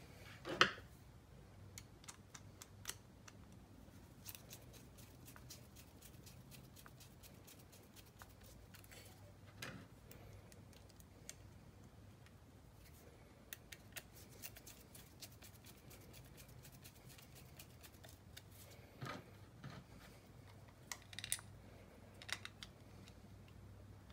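Faint small clicks and ticks of a hand screwdriver turning three small screws into a robot vacuum's plastic wheel-module housing, with a few louder knocks as the part is handled.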